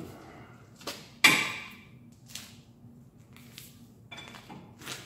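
A handful of sharp metal clanks and knocks from tools and parts being handled at a truck's front axle knuckle, the loudest about a second in with a brief ring.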